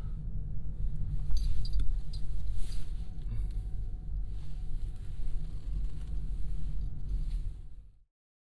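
Low rumble of a car rolling slowly through a parking lot, heard from inside the cabin. It cuts off to silence near the end.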